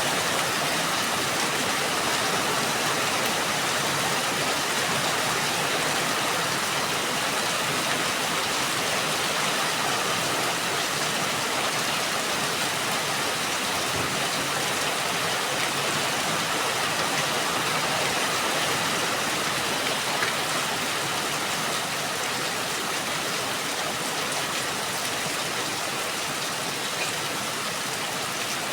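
Steady rain falling, an even hiss of many drops with a few faint individual drop ticks.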